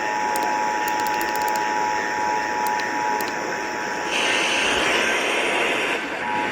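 Emergency Alert System attention signal: two steady tones sounding together, under heavy hiss that grows louder about four seconds in. The tones drop out briefly near the end.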